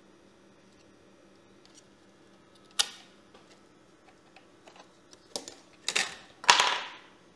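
Clicks and scrapes of a laptop CPU heatsink and small metal parts being handled and fitted onto a motherboard: one sharp click about three seconds in, then a cluster of clicks and a longer scrape near the end.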